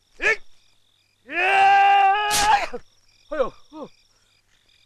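A man's wordless vocal sounds: a short grunt, then a loud long held cry that steps up in pitch before breaking off, then two short falling grunts, over crickets chirping steadily.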